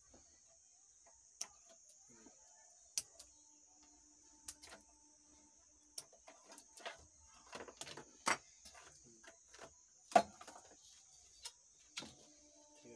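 Scattered clicks, taps and knocks of hand tools and fingers working on a power amplifier's metal chassis and channel board as it is dismantled, the sharpest about eight and ten seconds in, over a steady high hiss.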